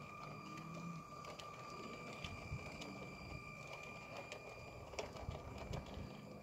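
Lego City passenger train (set 60197) with its Powered Up motor running along plastic Lego track: a faint steady whine with scattered light clicks as the wheels pass over the track joints.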